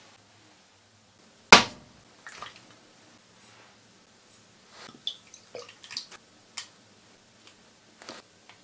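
Kitchen handling sounds around a stainless steel mixing bowl: one sharp knock about a second and a half in, then scattered light clicks and soft wet taps as salt and sauce are spooned onto the ingredients.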